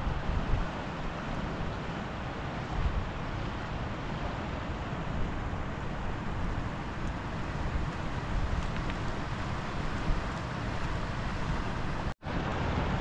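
A steady rushing noise with a low rumble underneath. It drops out completely for a moment near the end.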